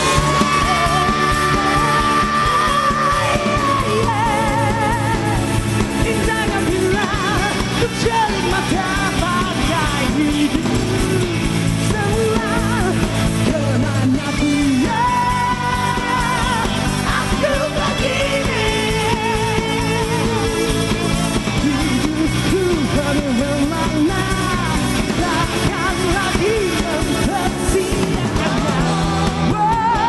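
Rock band playing a song with a lead vocal sung over drums and band, continuous and loud.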